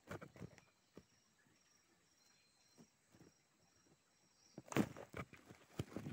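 Rustling and light knocks of sticks and leaf litter being handled while a bamboo snare trigger is set, with a louder burst of rustling and knocks about four and a half seconds in. A faint high insect chirp repeats about twice a second in the background, fading out before the louder handling.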